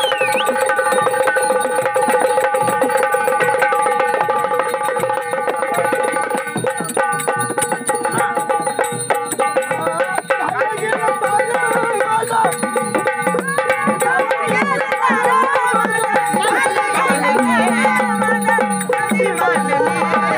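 Instrumental passage of traditional Marathi gondhal folk music: hand drums playing a fast rhythm over held drone notes, with a wavering melody line coming in partway through.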